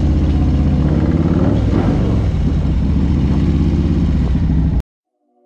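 Harley-Davidson V-twin motorcycle engine running loud and close, with a fast, even firing pulse as the bikes pull out. It cuts off suddenly near the end.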